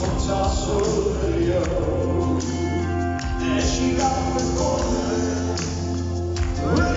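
Gospel song performed live: a male singer on an amplified microphone over music with a strong, steady bass, and congregation voices joining in.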